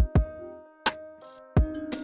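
Electronic background music with a drum-machine beat: deep kick-drum hits under held synth notes, with a short hissing snare-like hit about a second in.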